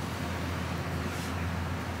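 Steady low hum and hiss of a working kitchen, with a faint scrape about a second in as a wooden T-shaped crepe spreader is drawn through batter on a hot griddle.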